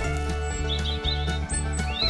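Background music with low held notes, and short bird-like chirps over it about halfway through and again near the end.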